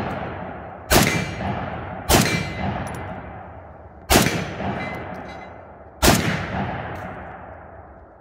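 Four shots from a Romanian PSL semi-automatic rifle in 7.62x54R, one to two seconds apart, each trailing off in a long echo. Steel target plates clang as they are hit.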